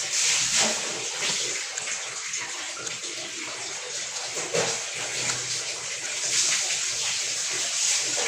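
Running water splashing, in uneven surges.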